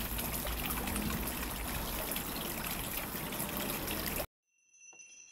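Groundwater running from a stone spout and splashing steadily into a stone basin below, cut off abruptly about four seconds in.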